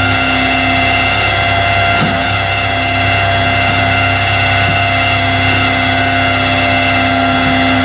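Flatbed tow truck's hydraulic winch running steadily with a whine over the truck's engine, pulling the car up the bed by its chain. A faint click about two seconds in.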